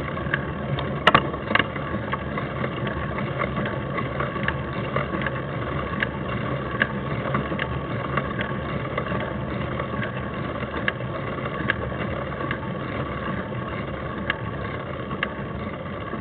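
Mountain bikes climbing a paved road, heard from a camera mounted on one of the bikes: a steady rumble of tyres and wind, with scattered sharp clicks and rattles from the bike, the sharpest about a second in.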